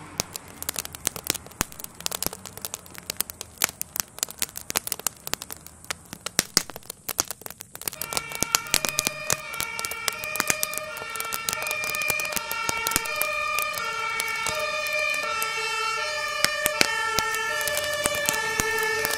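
A burning garden shed crackles with many sharp pops and cracks. About a third of the way in, an emergency vehicle's two-tone siren comes in, alternating between two pitches and growing louder.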